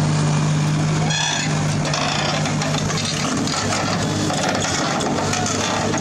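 Steady hum of a small toy motor running, as the RC toy excavator moves on its tracks.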